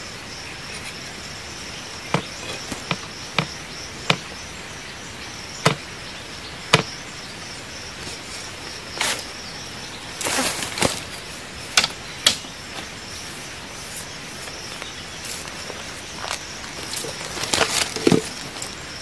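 Scattered sharp knocks and clicks of wooden sticks against a stick-built cage trap as it is handled, a dozen or so, bunched around the middle and again near the end. A steady high insect drone runs underneath.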